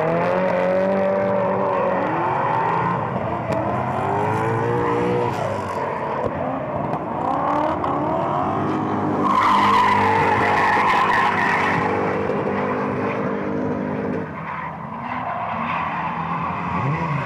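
Drift cars' engines revving up and down as the drivers work the throttle, with tyres screeching through the slide. The tyre screech is loudest a little past the middle.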